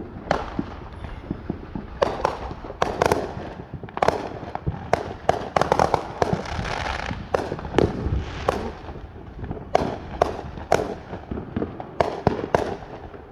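Fireworks going off in a rapid, irregular barrage of bangs and pops with crackling between them.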